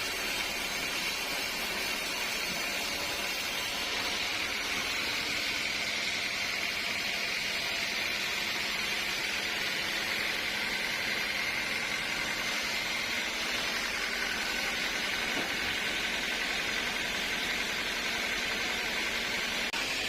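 Sawmill machinery running steadily, a continuous hiss with a faint higher tone that comes in about halfway through.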